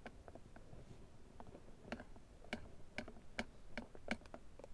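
Hot stove with beef fat boiled over onto its top, crackling and popping in irregular sharp ticks. The pops are faint at first and come louder and more often, two or three a second, from about halfway through.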